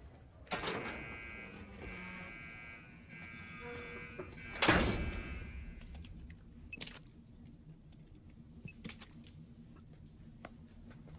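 Heavy steel prison door: a steady buzzing tone sounds for about four seconds, then a loud metallic clang, followed by a few faint clicks.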